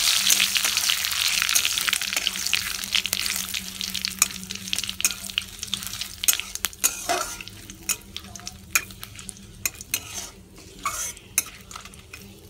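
Cumin seeds, bay leaves and a dried red chilli sizzling in hot oil in a kadai. The sizzle is loud at first and fades away over the first half. A metal spatula stirs and scrapes them around the pan, its sharp taps and scrapes coming through more clearly as the sizzle dies down.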